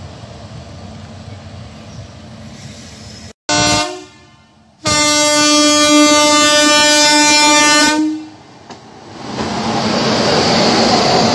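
Indian Railways electric locomotive horn: a short blast, then a long steady blast of about three seconds. Then the steady running noise of the train.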